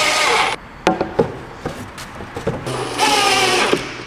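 Cordless drill driving screws into plywood, with the bit grinding through the wood. One run ends about half a second in and another comes about three seconds in, with a few knocks in between.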